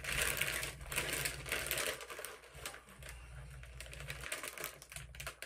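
Crinkling of a Doritos chip bag being handled as a hand digs into it, loudest in the first two seconds and thinning after, with crunching of chips being chewed.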